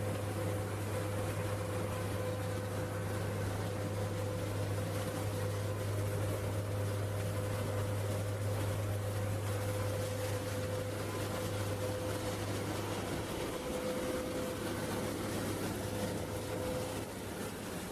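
Steady machinery hum and noise, with a low hum that drops away about thirteen seconds in and a fainter steady whine above it.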